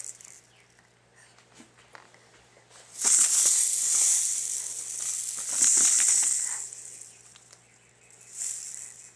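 Baby's plastic rattle toy, a clear ball with coloured rings and loose pieces inside, shaken and knocked about in bursts of rattling. The rattling runs from about three seconds in to nearly seven seconds, then comes once more, briefly, near the end.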